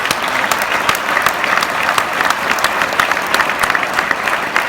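An audience applauding: many hands clapping together in a dense, loud, steady patter.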